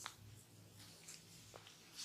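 Near silence: faint room tone with a couple of soft, brief clicks, one at the start and one about one and a half seconds in.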